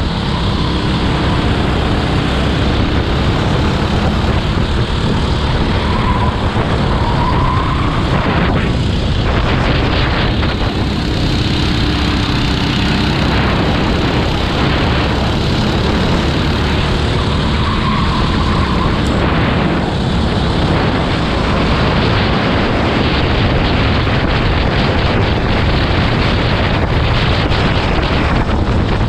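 Racing kart engine running at speed under a loud, steady rush of noise, its pitch climbing briefly twice, about a quarter and about two-thirds of the way through.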